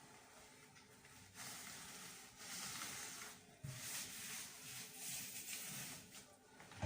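Compressed air hissing from an air tool in a car body shop, in two long stretches with a short break about three and a half seconds in.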